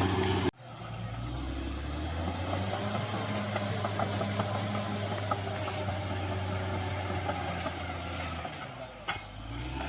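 CAT D6R XL bulldozer's diesel engine running steadily. The sound breaks off sharply about half a second in and resumes, then dips briefly near the end.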